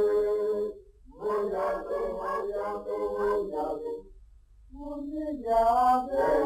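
Unaccompanied singing in long held phrases, breaking off briefly about a second in and again around four seconds in.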